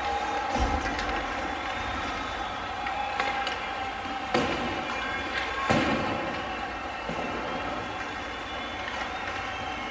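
Ice rink ambience during a youth ice hockey game: a steady hum and hiss of the arena, with a low thud less than a second in and two sharp knocks about four and six seconds in.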